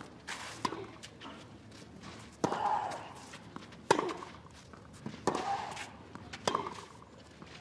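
Tennis rally on a clay court: four sharp racket-on-ball hits about 1.3 seconds apart as the players trade groundstrokes, several followed by a player's short exertion grunt.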